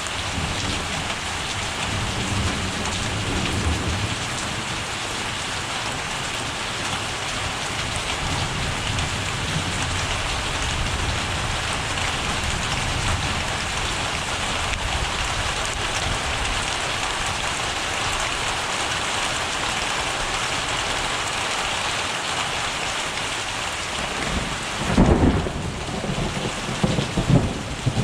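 Steady heavy rain falling, with low rolling rumbles of thunder. A louder low rumble swells about three seconds before the end, with a few shorter low bursts after it.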